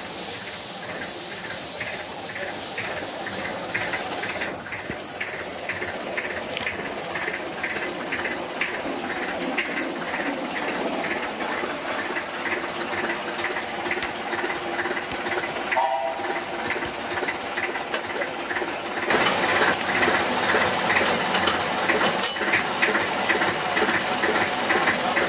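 Small 2 ft gauge narrow-gauge steam locomotives hissing steam, with a run of regular beats of about three a second from the engine in the first half. A brief high note comes near the middle, and from about two-thirds of the way in a louder, fuller hiss of steam takes over.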